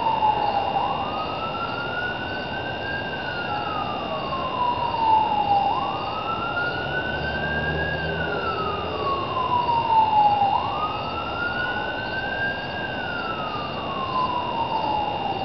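Siren wailing, its pitch climbing quickly and then sinking slowly, over and over about every five seconds.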